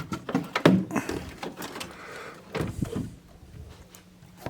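A few short knocks and clicks, like parts being handled on a workbench, over a faint steady hum.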